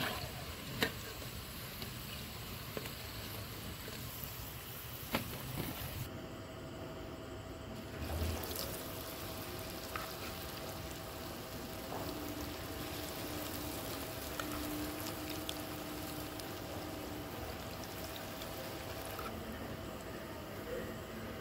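Batter-coated pakoras deep-frying in hot oil in an aluminium karahi, a steady sizzle, with a few sharp clicks of a metal slotted spoon against the pan in the first seconds.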